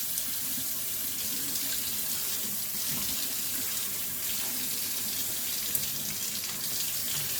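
Kitchen tap running steadily into a sink while the sinks are rinsed out.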